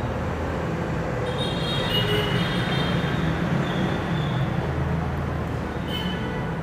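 Steady rumbling background noise with hiss, with a few short high-pitched tones over it, about a second and a half, four and six seconds in.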